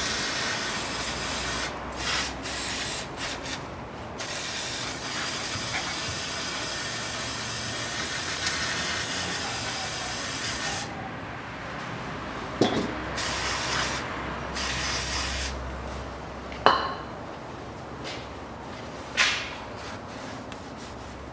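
Aerosol cleaner can spraying through a straw nozzle in hissing spurts, a long one first and then shorter ones, washing oil smudges off under the engine. A few sharp knocks follow in the second half.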